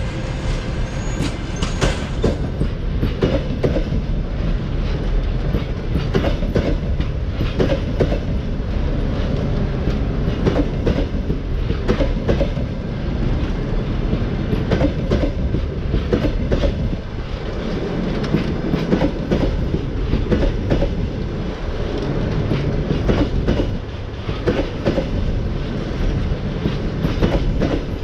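Passenger coaches of a departing long-distance train rolling past close by. The wheels clatter over the rail joints in a steady clickety-clack over a low rumble.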